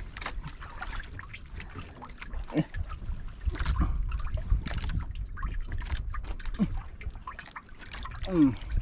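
Water trickling and lapping around a small wooden outrigger boat, over a steady low rumble, with scattered small clicks and knocks from handling a caught fish. A brief falling voice sound comes near the end.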